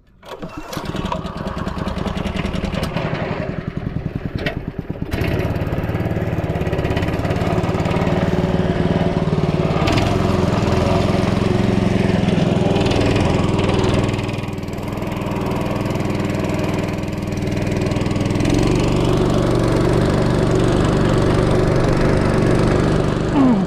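Small single-cylinder petrol engine of a long-tail boat motor, coming in right at the start and then running steadily under throttle as the boat moves. Its revs rise about five seconds in, ease briefly around fourteen seconds, and fall sharply at the very end.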